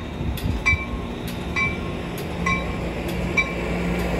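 Amtrak Pacific Surfliner bilevel passenger coaches rolling slowly past at a station platform with a low rumble, while a bell rings steadily about twice a second.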